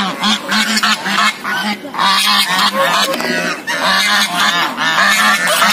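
A flock of geese honking, many short calls overlapping in quick succession.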